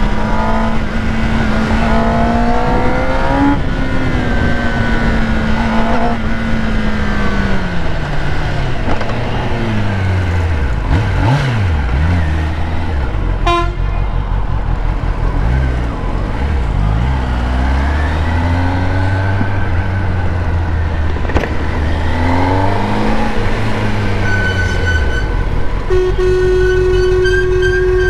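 Kawasaki Ninja ZX-10R's inline-four engine running in traffic. The revs are held for the first few seconds, then drop, and rise and fall several times after that before settling low. Vehicle horns honk near the end.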